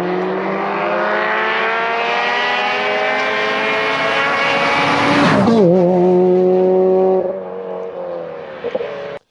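A car engine revving, its pitch climbing steadily for about five seconds, then dropping sharply with a wobble and holding lower. It grows quieter about seven seconds in.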